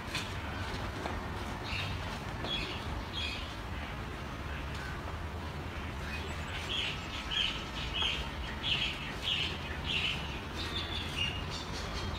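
Small birds chirping in short repeated calls, a few early on and then about two a second through the middle and later part, over a low steady hum.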